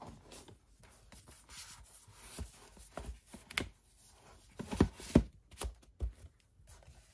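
Slipcovered plastic 4K Blu-ray cases being handled and slotted back into their cardboard box: light rubbing with scattered knocks and taps, a few sharper knocks about five seconds in.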